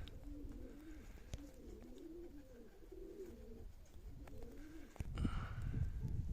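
Domestic Baku pigeons cooing, a run of low, wavering calls. A louder rough noise sets in near the end.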